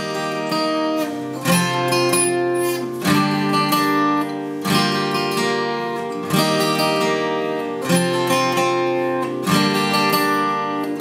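Solo acoustic guitar, a dark cutaway acoustic, playing a chord pattern, with a new chord struck about every second and a half and each one left ringing.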